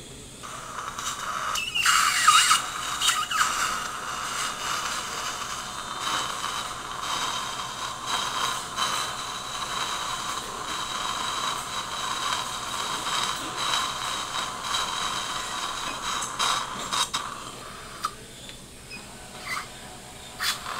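Surgical implant drill handpiece running steadily with a whine and a hiss of irrigation, cutting the implant bed in the upper jawbone, first with a point drill and then a 2.2 mm twist drill. It starts about half a second in, with a few sharp clicks, and becomes quieter near the end.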